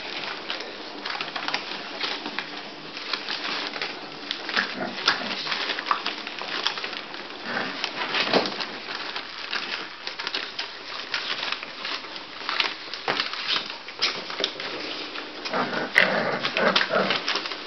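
A litter of five-week-old bulldog puppies scrambling over newspaper, giving a constant irregular crackle and rustle of paws and paper. Small puppy whimpers and squeaks come now and then, with a busier patch near the end.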